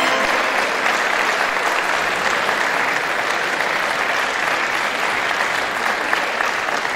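Crowd applauding steadily, a dense even clapping.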